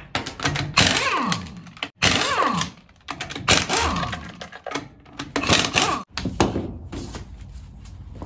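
Air impact wrench hammering wheel nuts loose with a regular impact socket, in a series of short bursts; after each burst the motor's pitch falls as it spins down.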